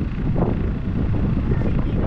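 Wind buffeting the microphone: a loud, irregular low rumble with no clear pitch.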